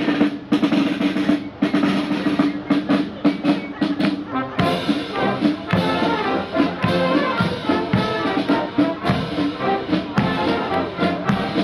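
Marching wind band playing a march: trumpets and other brass over a steady drum beat, the brass filling out about four seconds in.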